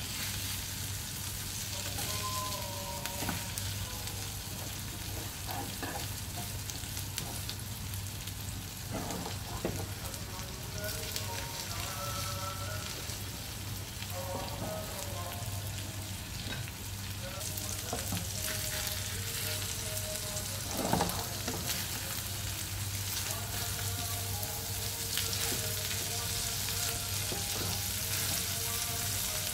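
Corned beef, onion and egg sizzling steadily as they fry in oil in a pan. A few brief knocks of a wooden spatula against the pan, the loudest about two-thirds of the way through.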